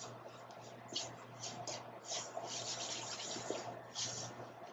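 Wooden spatula stirring a thick mix of hemp seeds, chia seeds and nut butter in a stainless steel bowl: irregular gritty scraping strokes, over a faint low steady hum.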